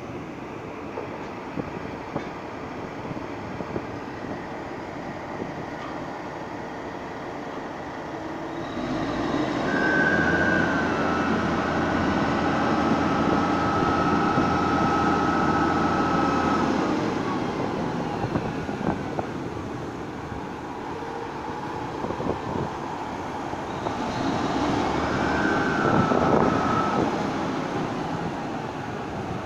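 Machinery of a ZJ30 land drilling rig running with a steady mechanical din. It swells louder twice, about nine seconds in and again near the end, each time with a high whine that drops slightly in pitch and then holds.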